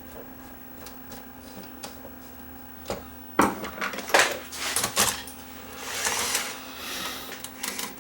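A run of sharp clicks and knocks from hard parts being handled, bunched in the middle, then a few seconds of scraping and rustling, over a steady low hum.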